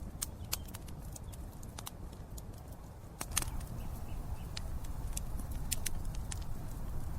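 Campfire crackling: irregular sharp pops and snaps over a steady low rumble of burning, a little louder from about three seconds in.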